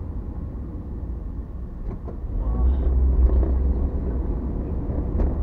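Car interior noise while driving: a steady low engine and road rumble heard from inside the cabin, growing louder about halfway through as the car moves off through the intersection.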